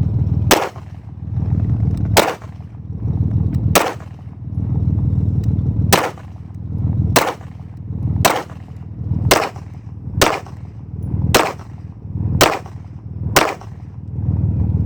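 Bersa TPR9 9mm semi-automatic pistol firing Winchester ammunition: eleven single shots at an uneven pace, roughly one every second or so, with the gaps shortening toward the end.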